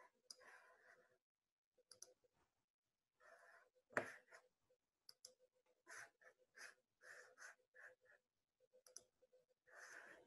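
Near silence with faint, scattered clicks and rustles, and one sharper click about four seconds in.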